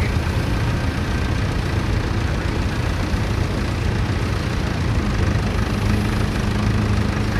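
Vintage tractor engine running steadily, a low rumble, with a steady hum coming in about halfway through and growing stronger.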